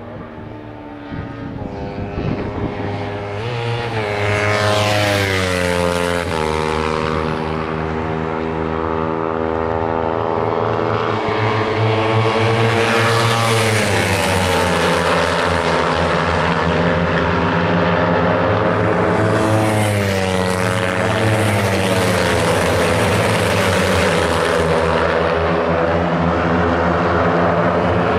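Kawasaki Ninja 300 race bikes passing at speed, their parallel-twin engines at high revs. The sound is loud throughout, and the pitch drops sharply as each group goes by, several times over.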